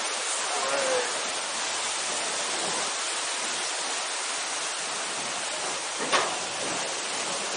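Steady hiss of rushing water in a log-flume ride's channel, with a single sharp knock about six seconds in.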